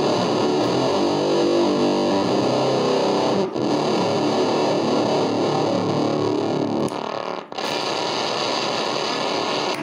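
Electric guitar played through a Fender Blender clone octave-fuzz pedal that is switched on, giving a heavily distorted fuzz tone. The playing breaks off briefly twice, about three and a half and seven and a half seconds in.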